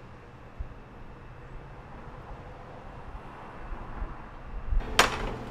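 Steady low background hum, then about five seconds in a single sharp clink of dishware with a brief ring.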